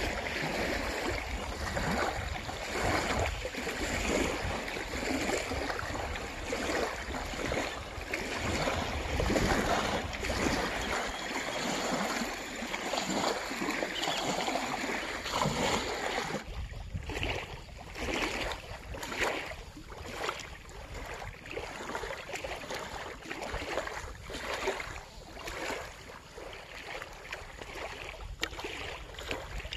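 Small waves lapping against a gravel shore, with wind rumbling on the microphone. About halfway through the wind noise drops away, leaving the irregular wash of the ripples.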